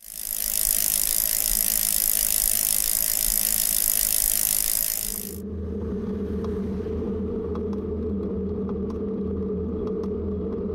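Bicycle freewheel ticking rapidly as the bike coasts, a dense high-pitched buzz that cuts off abruptly about five seconds in. After it stops, a steady lower hum of the moving bike remains, with a few faint ticks.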